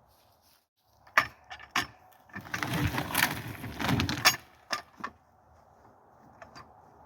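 Clicks and knocks of hard objects being handled, with a couple of seconds of clattering and rustling in the middle.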